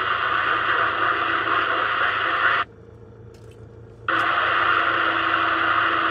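Two-way radio static: a loud, even hiss from an open transmission that cuts off abruptly about two and a half seconds in, then comes back just as suddenly about a second and a half later.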